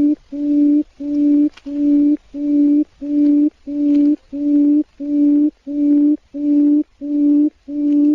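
Quail call: a low, steady-pitched hoot repeated evenly about twice a second, each note lasting nearly half a second.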